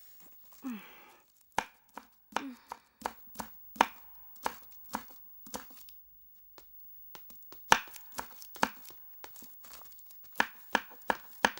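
Kitchen knife chopping cabbage on a wooden cutting board: sharp, regular chops, about two to three a second, pausing for about a second midway before resuming.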